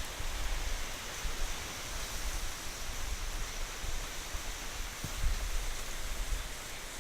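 Heavy rain falling steadily, a dense hiss, with irregular low rumbling surges, strongest about five seconds in.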